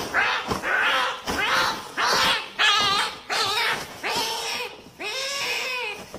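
A cat meowing over and over: about eight drawn-out, wavering meows in a row, each half a second to a second long.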